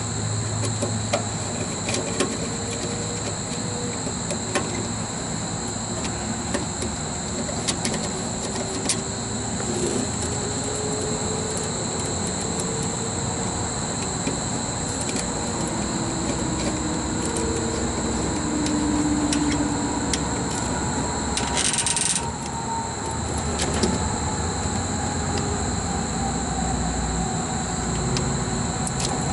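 Steady high-pitched insect chorus over a low rumble, with scattered small clicks of a screwdriver and wires being worked on an electrical contactor. A short scraping hiss about three-quarters of the way in.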